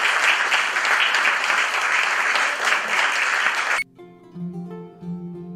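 An audience applauding, cut off abruptly a little under four seconds in. Gentle plucked-string music, guitar-like, starts at that point.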